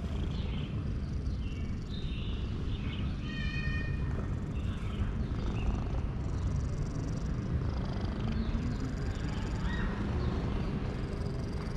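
Cat purring loudly and steadily while being stroked on the head, a contented purr.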